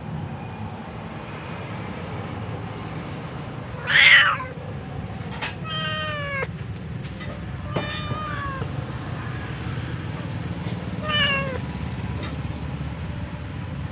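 A cat meowing: one short, loud, harsh cry about four seconds in, then three shorter meows spread over the following seven seconds, over a steady low background hum.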